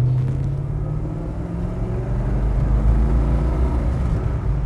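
1966 Oldsmobile 442's 400 cubic inch V8 with dual exhaust pulling under acceleration, its note rising slowly.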